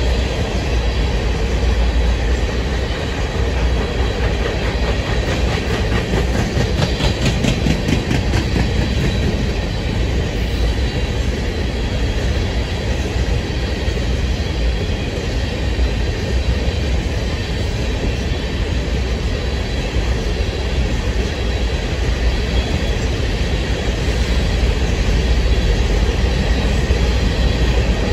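Loaded open-top hopper cars of a rock train rolling past: a steady rumble of steel wheels on rail, with a regular clickety-clack over the rail joints. A spell of sharper metallic clatter comes about seven seconds in.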